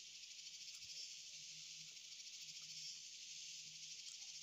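Faint, steady high-pitched drone of an insect chorus, unbroken throughout.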